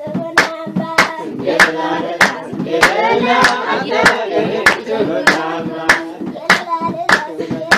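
Several voices singing together over steady rhythmic hand clapping, about one and a half claps a second, the singing densest in the middle.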